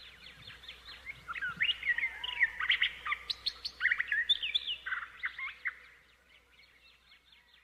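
Birds chirping: a dense flurry of many short, high chirps that thins out to a few faint ones after about six seconds.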